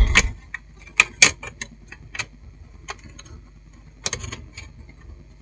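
A soft knock at the start, then a few scattered light clicks and taps as the satellite receiver's power-supply circuit board is handled and set back into its metal case.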